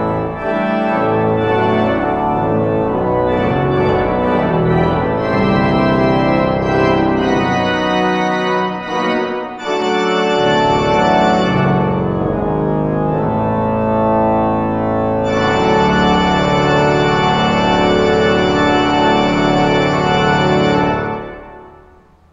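Organ playing full, held chords that change every second or two; the final chord stops about 21 seconds in and dies away.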